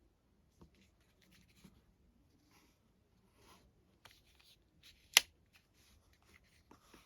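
Quiet rubbing and scratching handling noise with scattered soft clicks, and one sharp click about five seconds in, from a Nokia E65 mobile phone being handled and its keys pressed.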